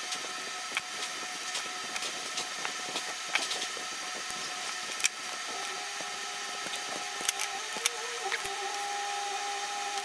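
Small sharp clicks and taps from hands working electrical wire and small tools on a bench mat, over a steady hum with a few held tones; new tones join about halfway through.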